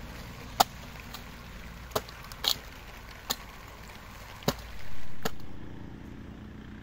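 Axe blows chopping into a dry wooden pole: about six sharp, unevenly spaced knocks, two in quick succession around two and a half seconds in. A louder low rush swells and fades about five seconds in.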